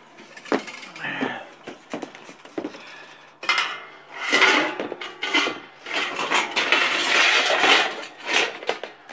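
Cut piece of ribbed steel roofing panel scraping and rattling against the metal roof as it is worked into place. There are a few scattered clicks at first, then a dense run of metallic clatter from about three and a half seconds in.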